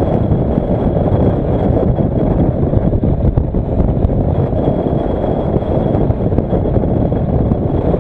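Steady wind rush over the camera microphone on a moving Kawasaki Versys motorcycle, mixed with the bike's running engine at cruising speed.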